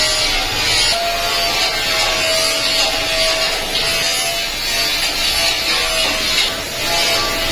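A power tool working sheet metal in repeated passes of a few seconds each, with a steady whine underneath.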